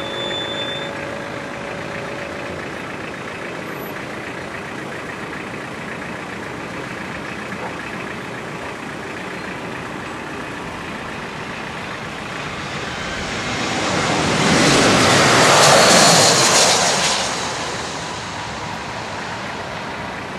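A landing aircraft passes low overhead: a rushing roar swells up about two-thirds of the way in, peaks and fades within a few seconds, with a high whine falling in pitch. Steady road-traffic noise runs underneath.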